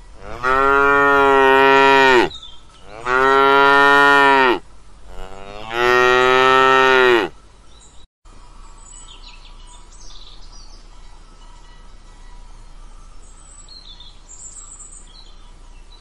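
A cow mooing three times in a row, each moo a long, steady call of about a second and a half. After a brief break comes only a faint steady outdoor background with a few faint high chirps.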